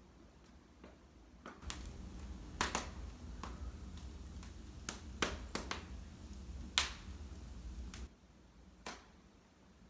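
Wood fire in a fireplace crackling, with sharp pops scattered through it. From about a second and a half in to about eight seconds the pops come thicker and louder over a low rushing sound that then drops away, leaving a few faint pops.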